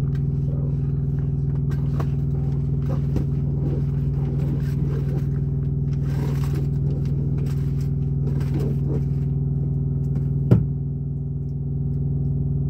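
Steady low drone of the semi truck idling, with light clicks and rustles from a shower curtain and its rod being handled. A sharp knock about ten and a half seconds in is the loudest sound.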